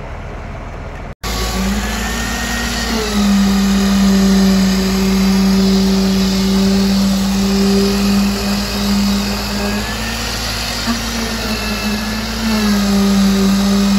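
Handheld concrete vibrator running, its head pushed into fresh concrete in the footing wall forms to settle it: a loud, steady, motor hum. The hum wavers and eases for a few seconds near the end, then comes back up.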